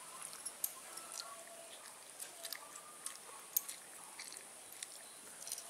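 A toddler chewing chicken held in the hand: faint, scattered mouth clicks over a low steady hiss.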